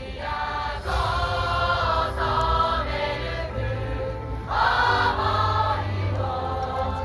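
Yosakoi dance song played over loudspeakers: several voices singing over backing music, growing louder about a second in.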